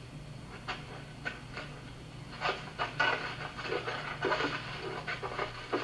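Film soundtrack heard from a screen in a room: a string of short, breathy vocal bursts from a group of people heaving a large round table up and over, thickest about halfway through, over a steady low hum.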